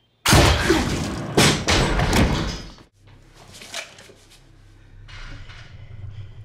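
Shotgun fired at close range: a sudden very loud bang, with a second loud blast about a second later, the noise dying away before the three-second mark. A low drone follows.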